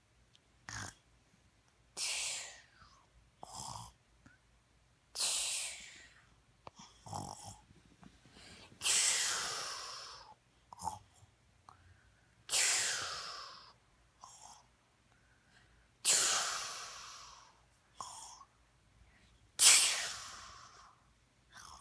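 A young child snoring during a nap: slow, regular breaths about one every three and a half seconds, each loud one starting sharply and fading over a second or so, with softer, shorter breath sounds between them.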